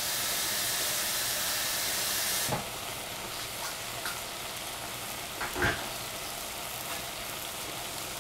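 Oyster mushrooms and cabbage sizzling in a stainless saucepan as they give off their water. The hiss is louder for the first two and a half seconds, then settles to a softer sizzle, with a couple of light knocks.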